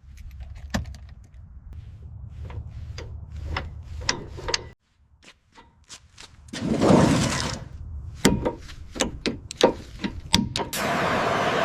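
A run of sharp knocks and clicks over a low rumble, which stops about halfway through. A short loud burst of hissing noise comes about seven seconds in, and a steady hiss starts near the end.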